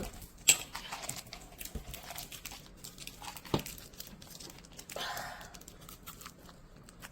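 Plastic candy wrapper crinkling as it is handled and opened. It comes in short spells with a few light clicks, and the longest rustle is about five seconds in.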